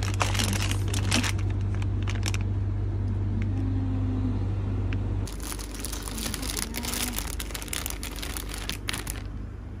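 Clear plastic produce bags of chili peppers crinkling and rustling as they are handled, in two stretches, the second starting about halfway through. A steady low hum runs underneath and cuts off about halfway.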